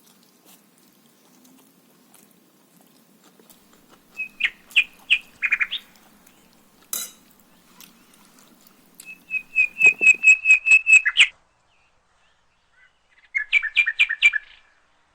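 A bird chirping in three bouts of quick repeated notes: a short burst a few seconds in, a longer even run of about eight notes a second around the middle, and a final burst near the end.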